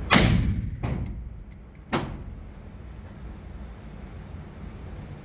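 Three suppressed rifle shots in the first two seconds, the first the loudest, each with a ringing tail. Light metallic clinks fall between the second and third shots.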